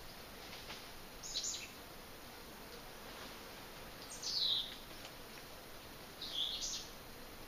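A bird calling three times, a few seconds apart. Each call is a short high whistle that slides down in pitch; the last one dips and rises again.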